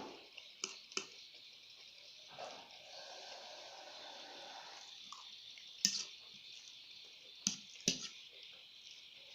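Close-miked eating sounds: wet chewing with sharp mouth clicks and smacks, the loudest about six and eight seconds in, and a longer wet sound from about two and a half to five seconds in, over a steady hiss.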